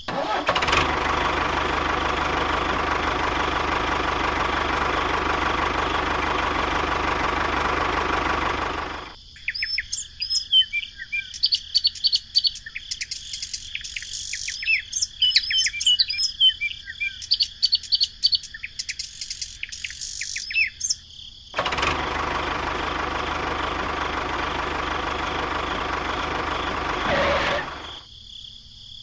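A tractor engine running steadily for about nine seconds, then small birds chirping for about twelve seconds, then the tractor engine running again and cutting out near the end.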